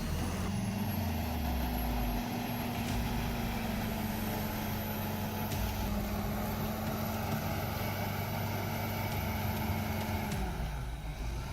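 Bulldozer's diesel engine running steadily at an even pitch, fading out near the end.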